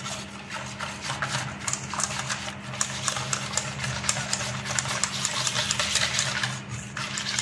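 Wire whisk beating a thin milk-and-cornflour batter in a stainless steel bowl: rapid, irregular clicking and scraping of the wires against the bowl's sides, over a steady low hum.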